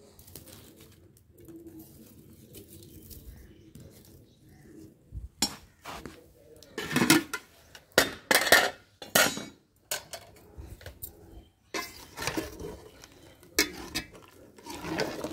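Metal ladle clinking and scraping against the sides of an aluminium cooking pot as a curry is stirred. After a quiet start, the clinks begin about five seconds in and come in clusters, loudest a few seconds later.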